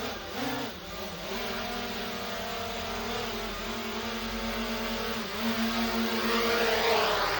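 Small DJI quadcopter drone hovering, its propellers giving a steady whine of several pitches. The pitch wavers briefly about half a second in, the whine grows louder in the last couple of seconds, and it dies away at the very end as the motors wind down.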